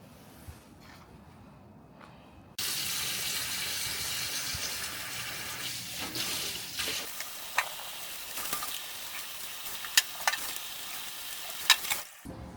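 Food sizzling in a hot pan. The hiss starts suddenly, eases slowly and has sharp pops of spitting fat, loudest about ten seconds in, then cuts off near the end.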